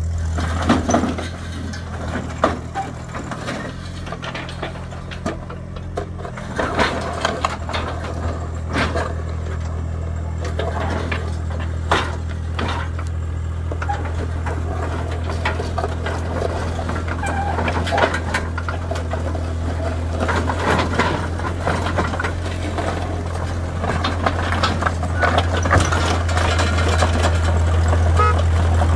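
Mini crawler excavator's diesel engine running steadily as the machine walks down steel loading ramps off a truck bed, with repeated clanks and knocks as its tracks and bucket meet the ramps and the ground. The engine grows louder near the end as the machine comes off onto the ground.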